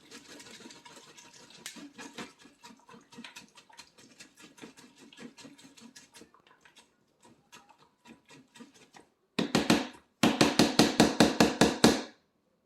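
Spoon scraping and pressing melon seeds and pulp to squeeze out their juice: a fast run of soft scrapes and clicks. Near the end comes a burst of loud, rapid knocks, about seven a second, lasting a couple of seconds.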